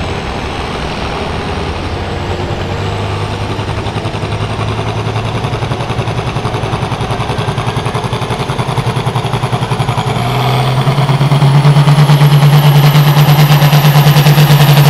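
International Harvester farm-stock tractor's diesel engine working under full load as it pulls the sled, running steadily and growing louder. About ten seconds in, the engine note steps up and gets much louder, and a high whine climbs with it.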